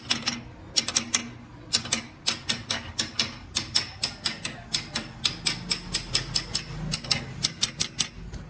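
Quick, light metal-on-metal taps with a faint ring, uneven at first and then steadier at about four or five a second: a small hammer or tool tapping on a motorcycle clutch housing.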